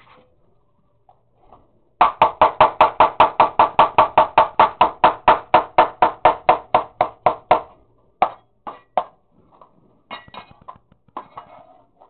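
A cleaver chopping fast on a cutting board, about five strokes a second for five or six seconds, then a few slower, scattered chops.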